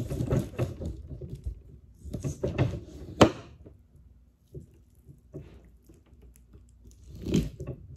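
Fillet knife cutting and scraping through a hogfish on a tabletop, in short bouts, with a sharp tap about three seconds in and another bout of scraping near the end.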